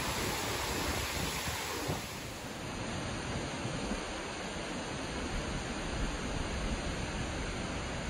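A large waterfall, about 90 m high, pouring over rock: a steady, dense rushing of water that dips briefly in level about two seconds in.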